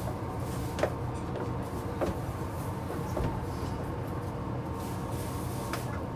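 Tama Monorail train running: a steady low rumble with a faint steady hum, broken by a few sharp knocks spaced a second or more apart.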